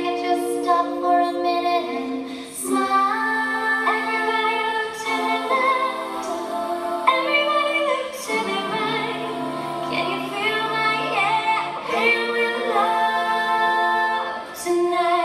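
All-female a cappella group singing in close harmony through handheld microphones, several voices holding chords that shift together every second or two.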